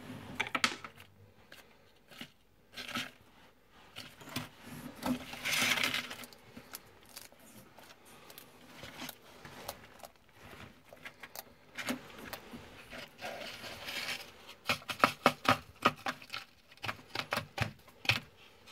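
Bearded dragon chewing a locust: a run of crisp crunches and clicks, coming fast and thick near the end, with a short rustle about a third of the way in.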